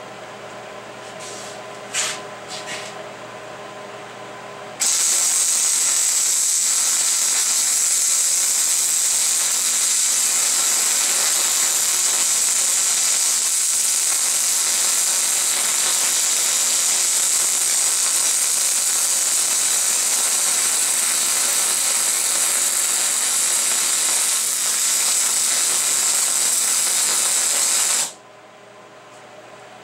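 An electric welding arc running on a steel brake bracket, a loud, even sizzling hiss that starts abruptly about five seconds in and cuts off just before the end. A few sharp clicks and a faint steady hum come before it.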